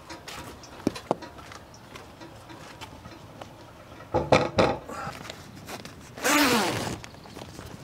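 Gear being handled: two light clicks about a second in, a few short rasping pulls a little after four seconds, then a longer, louder rasp near the end that falls in pitch.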